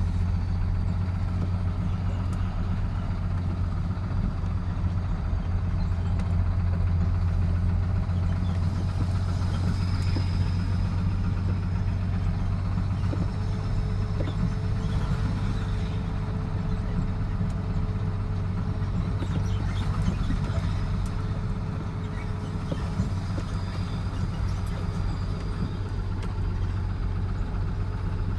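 Truck engine running steadily with a constant low hum.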